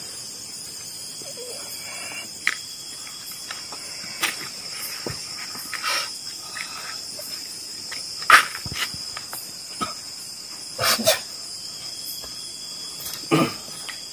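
Steady high-pitched chirring of crickets at night, with scattered short clicks and rustles and a few louder brief noises, the loudest a little past the middle.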